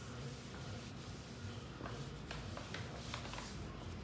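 Faint rubbing of a damp cloth wiped across a flat metal panel, with a few soft light scuffs.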